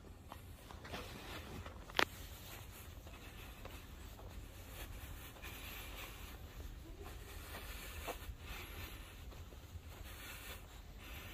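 Faint footsteps scuffing and crunching on a dry dirt trail strewn with pine needles, with irregular rustling and a steady low rumble underneath. One sharp click about two seconds in.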